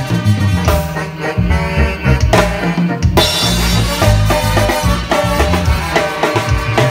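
Live Latin dance band playing loudly: a drum kit with cymbals, a trumpet and keyboard over a strong, bouncing bass line, with short repeated horn phrases. It is heard from right beside the drum kit, so the drums and cymbals sit close.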